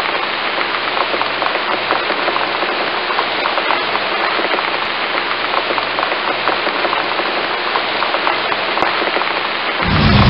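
Steady rain falling, a dense patter of small drops on a surface. A deep low rumble comes in just before the end.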